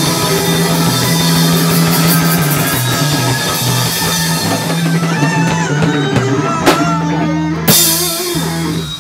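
Live rock band of distorted electric guitars, bass and drum kit playing loudly in a small rehearsal room. Near the end a cymbal crash hits and the last chord rings out, then the sound dies away as the song ends.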